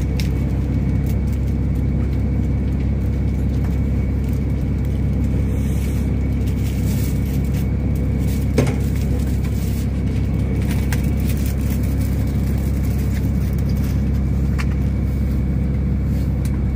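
Fishing boat's diesel engine running with a steady low drone, with one short knock about halfway through.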